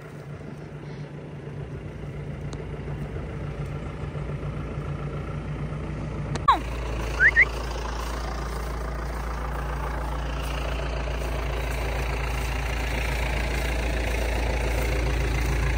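Farm tractor engine idling steadily, gradually getting louder. About six and a half seconds in come a sharp click and a short falling whistle, followed by two quick high rising chirps.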